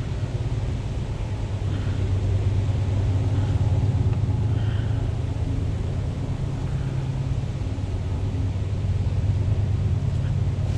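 A steady low hum, like a motor running, with a slight dip about three quarters of the way through.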